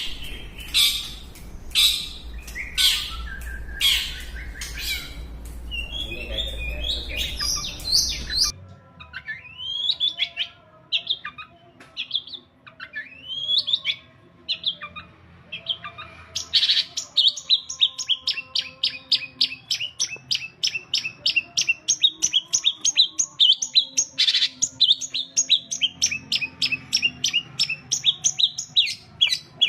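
Long-tailed shrike (cendet) singing its varied mimicking song. Harsh scratchy notes come first over a low hum that cuts off about a third of the way in. Sliding rising and falling calls follow, then a long fast run of short repeated high chirps, about five a second.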